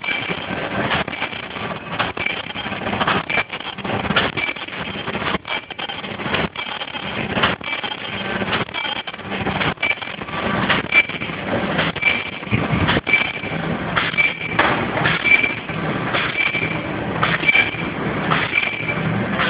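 Non-woven bag making machine running: steady mechanical clatter with sharp knocks, and a short high tone repeating about once a second with the machine's cycle.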